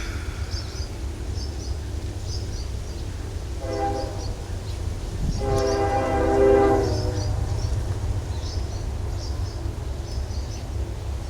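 Train horn sounding twice over a steady low rumble: a short blast about four seconds in, then a longer, louder one about a second and a half later.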